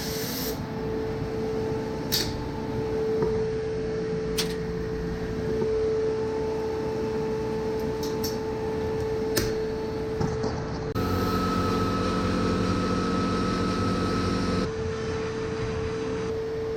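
A steady machine hum with a few sharp clicks scattered through it. About eleven seconds in, a second, deeper drone joins for roughly four seconds and then cuts off suddenly.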